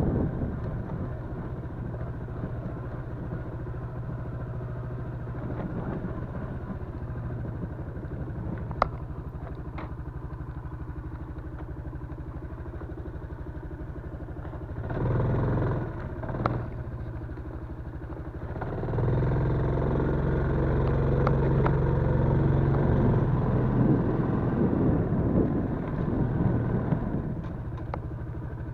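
Yamaha Crypton-X motorcycle's small single-cylinder engine running at a steady low speed, with a brief rise about halfway through, then louder for several seconds from about two-thirds of the way in before easing back down. A few sharp clicks or knocks come over it.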